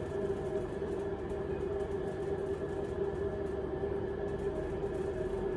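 A steady machine hum with several held tones, unchanging throughout.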